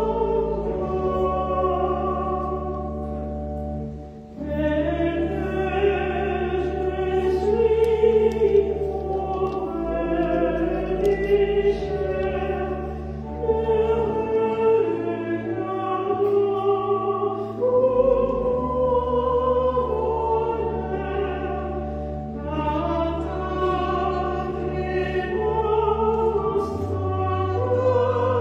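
A choir singing offertory music with organ accompaniment, the voices moving over long held low organ notes. The music dips briefly between phrases about four seconds in.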